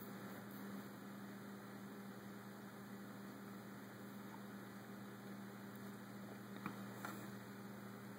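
Faint steady low electrical hum over a soft hiss of room tone, with two faint short clicks near the end.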